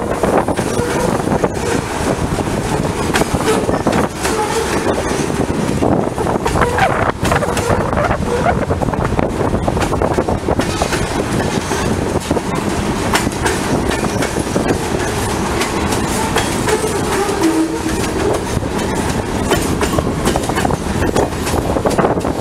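Freight train of covered hopper cars rolling past at speed, steel wheels clicking steadily over the rail joints under a continuous rumble.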